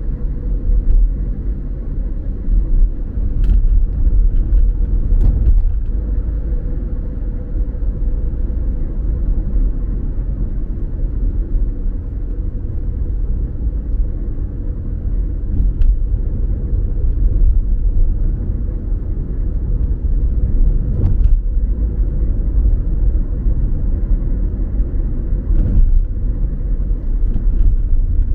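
Car driving, heard from inside the cabin: a steady low rumble of road and engine noise with a faint constant hum. A few light knocks come through now and then.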